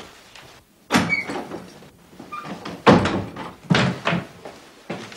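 A door being opened and shut, with a sharp knock about a second in. The loudest thud comes near three seconds, followed by a few more knocks and thuds.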